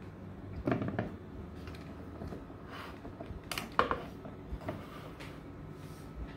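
Light handling noise: a few short soft knocks and rustles about a second in and again midway, over a low steady hum.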